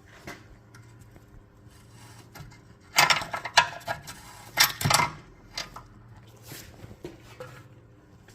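Metal clattering and clicking, like hand tools being handled or worked, loudest for about two seconds in the middle, followed by a few lighter knocks. A faint steady hum runs underneath.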